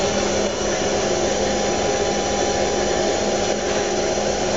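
Steady mechanical whir and hum of a Haas CNC lathe running while its tool is jogged slowly in by handwheel to touch the part face.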